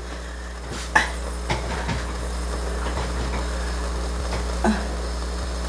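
A few light knocks and rustles of a person sitting down at a table, the clearest about a second in and another near the end, over a steady low hum.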